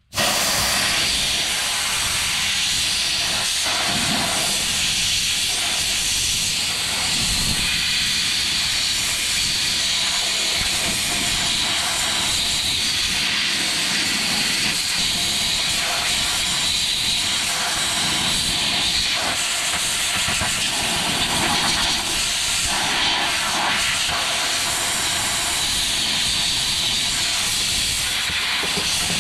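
Compressed air hissing steadily from an air blow gun as it blasts dirt and soapy water away from around the fuel pump lid on top of a fuel tank.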